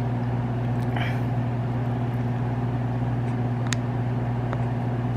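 Steady low electrical hum with a few faint clicks.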